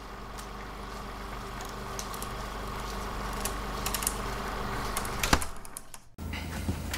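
Mechanical whirring sound effect with scattered clicks, growing louder, ending in a sharp click about five seconds in before it cuts off.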